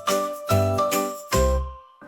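Instrumental children's-song music: three struck chords of bright, bell-like notes over a deep bass, each ringing and fading before the next.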